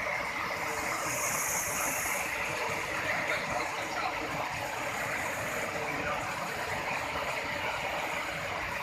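River water cascading over and between boulders: a steady, even rush of white water.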